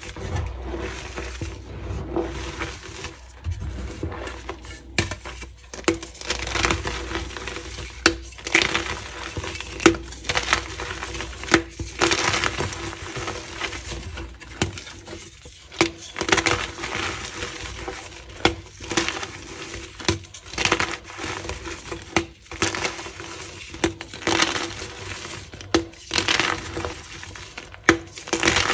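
Powdery reformed gym chalk and its crumbling lumps being squeezed, crushed and rubbed between bare hands: a soft, continuous crunching and crackling, with sharper crunches every second or two as lumps break.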